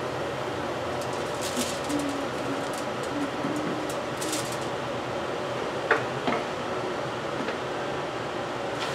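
Steady background hum with brief crinkles of aluminium foil and two light taps about six seconds in, as a wooden spoon and fingers pack stuffing into a whole fish lying on the foil.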